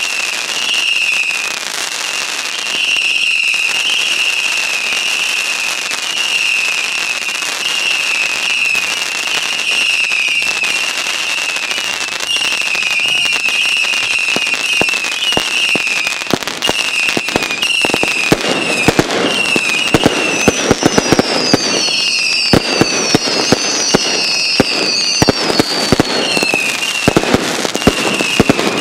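Fireworks display: many overlapping whistling fireworks wavering around one high pitch, joined for a few seconds by higher falling whistles. From a little past halfway, rapid sharp cracks and crackling pile in and become the loudest sound.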